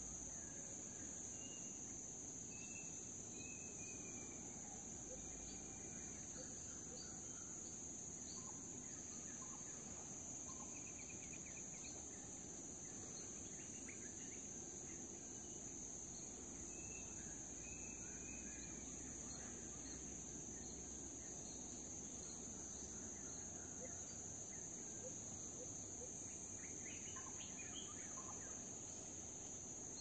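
Forest ambience: a steady, high-pitched insect chorus drones throughout, with scattered short bird calls and chirps over it.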